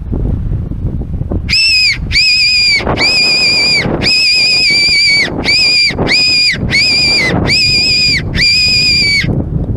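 Silva fox whistle blown in a series of nine short, high-pitched squeals, each dipping slightly in pitch as it ends: a predator call to lure in a fox or cat. Low wind rumble underneath.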